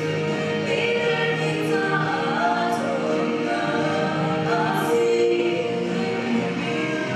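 Female vocal trio singing a gospel song in harmony, amplified through handheld microphones.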